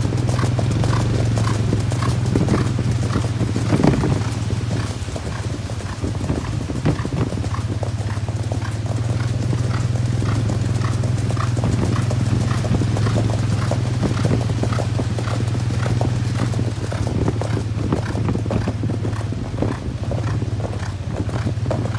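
Hooves of three horses cantering on a gravel road: a quick, continuous run of hoof beats, with a steady low hum underneath.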